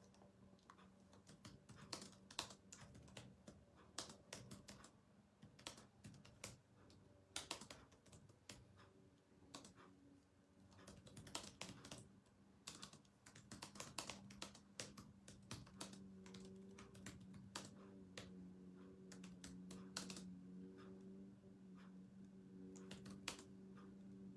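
Faint typing on a computer keyboard: irregular key clicks in quick runs, with pauses between them. A steady low hum sits underneath and grows louder about halfway through.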